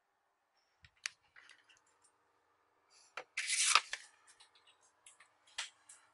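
Handling noise from a handheld camera being swung about: scattered sharp clicks and rustles, with a loud scraping rustle lasting about half a second, three and a half seconds in.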